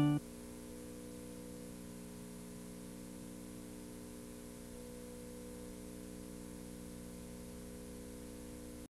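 The last note of a glockenspiel-like chime jingle cuts off just after the start, leaving a steady faint hiss with a low electrical hum from the recording itself, which stops dead just before the end.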